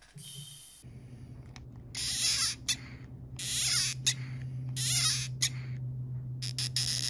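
MityVac hand vacuum pump squeezed in about four strokes, each a short hissing squeak with clicks from the handle, drawing about 5 inches of mercury of vacuum on a Bosch D-Jetronic manifold pressure sensor. A low steady hum sets in about a second in and runs under the strokes.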